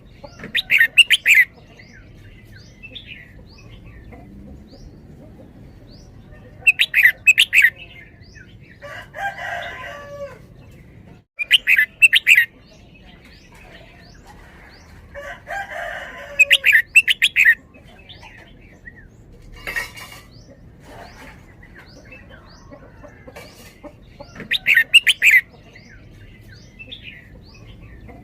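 Red-whiskered bulbul singing loud, quick phrases of notes, five times in all, a few seconds apart, with softer rough sounds in between.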